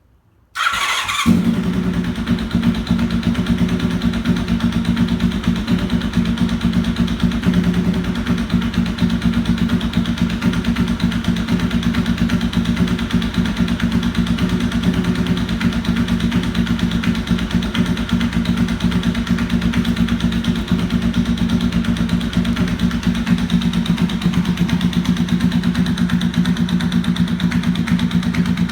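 1992 Honda VFR750's V4 engine cranked on the starter, catching about a second in and then idling steadily. It has an abnormally loud knock, which the owner traced to two missing header bolts on the front cylinder head and sheared-away casing.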